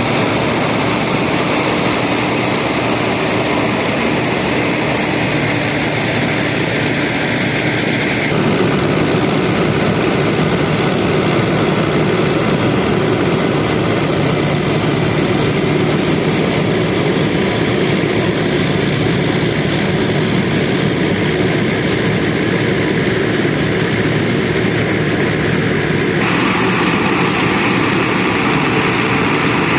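Fiat tractor's diesel engine running steadily under load while it drives a rice harvesting machine, with the machine's mechanical clatter and whirr mixed in. The sound shifts abruptly about 8 seconds in and again near the end.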